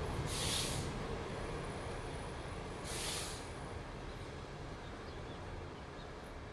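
Passenger train's low steady rumble, slowly fading, with two short sharp hisses of compressed air from the air brake system, about half a second and three seconds in.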